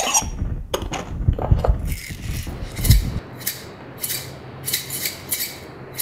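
Knocks and clinks of a stainless steel cup being handled, then a homemade shaker, dry rice inside a stainless steel cup, shaken in a steady rhythm from about halfway through.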